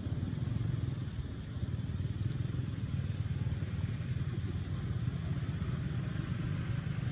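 A motor vehicle engine running steadily, a low rumble.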